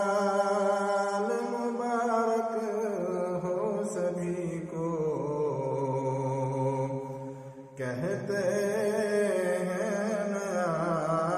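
A man's solo voice chanting in long, held melodic phrases with wavering, ornamented pitch. A brief pause about two-thirds through, then the chant resumes.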